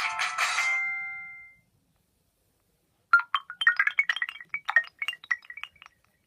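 Nokia 515 ringtones played on a Nokia 7100 Supernova phone's speaker: one tune ends on a held note that fades out in the first second and a half. After a pause of about a second and a half, another ringtone of quick, short notes plays for about three seconds and stops.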